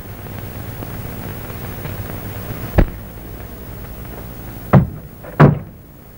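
Three sharp bangs over the old soundtrack's steady hiss and hum: one a little under three seconds in, then two more close together near the end.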